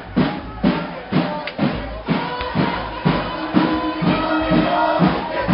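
Drums beating a steady marching rhythm, about two strokes a second, with a crowd's voices behind.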